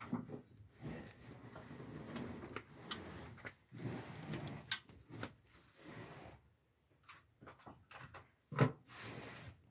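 Irregular rustling and scraping with a few sharp knocks, the loudest near the end, as someone moves about among wooden boards and clutter.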